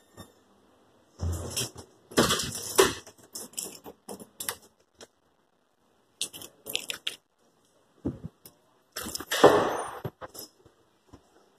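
Keys jangling, with knocks and clunks in irregular bunches. The loudest clatters come about two seconds in and near the end.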